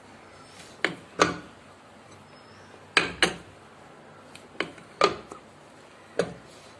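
Cast-iron hand-lever dough press clanking and knocking as its handle is pressed down on a dough ball and its lid is lifted open: about seven short, sharp knocks at uneven intervals.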